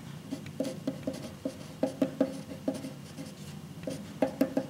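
Mechanical pencil writing a word by hand on paper over a wooden tabletop: a quick, irregular run of small taps and scratches as each letter stroke is made.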